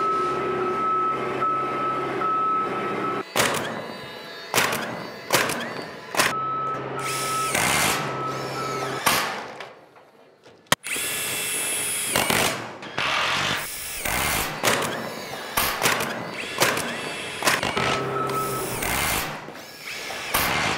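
Screw gun whirring in runs of a few seconds as it drives screws into the steel ceiling panels, with background music. The sound drops out briefly and cuts back in with a sharp click about eleven seconds in.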